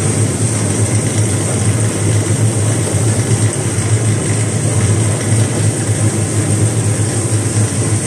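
Carrot brush washing and peeling machine running, its rotating bristle rollers tumbling carrots under water spray, with a steady low hum and a hiss of running water.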